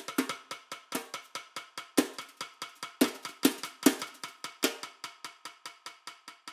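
Solo snare drum played with sticks: an even stream of dry, sharp strokes at about six a second. Louder accented hits fall about once a second at first, then in a quicker cluster near the middle, over a faint steady ring from the drum.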